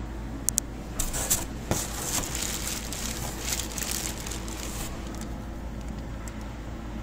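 Crackling, rustling handling noise. It starts with two sharp clicks about half a second in, then crackles from about one to five seconds in. Under it runs a steady low background hum.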